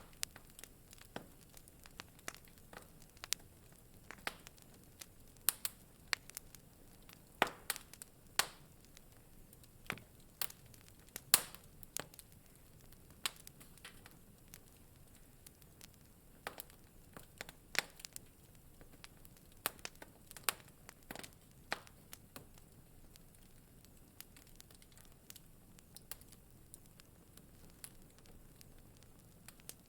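Wood fire in a fireplace crackling: irregular sharp pops and snaps over a faint steady hiss, growing sparser over the last several seconds.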